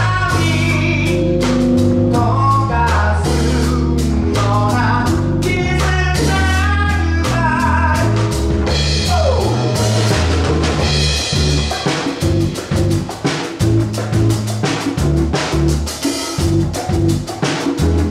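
Live band playing a soul song: electric bass, keyboard and drum kit, with sustained bass notes and a melodic line over the drums. About nine seconds in a falling glide leads into a choppier, more rhythmic groove with the drums to the fore.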